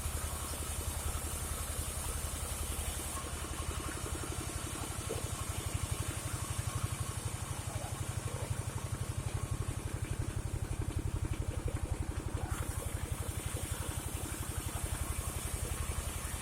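Engine-driven band sawmill running steadily, with a fast even engine beat. A high hiss over it drops away for several seconds in the middle, then returns.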